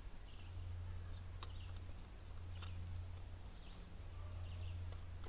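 Sparse small metallic clicks and scrapes as a backpacking stove is screwed onto its gas fuel canister, over a steady low rumble.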